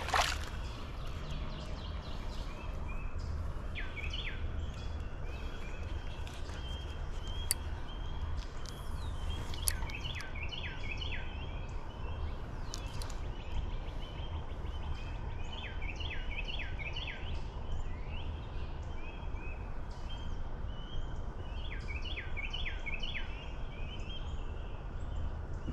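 A small bird calling in short runs of quick chirps, a run about every six seconds, over a steady low rumble.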